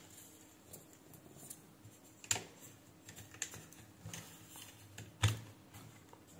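Light scattered clicks and taps of a small circuit board and its wires being handled and turned over on the plastic base of a digital bathroom scale, with two sharper knocks, about two seconds in and about five seconds in.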